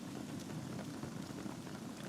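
Wood fire burning in a fireplace: a steady low rush of flames with many small, irregular crackles and pops from the logs.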